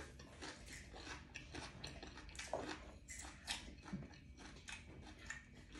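Faint chewing and crunching of someone eating, with scattered small irregular clicks.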